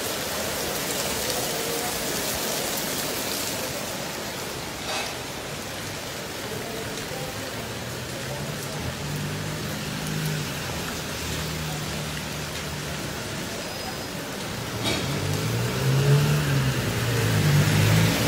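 Steady rain falling on a flooded street, a constant even hiss of rain striking pavement and standing water. About halfway through and again near the end, cars drive through the water, a low engine hum under the rain, growing louder in the last few seconds.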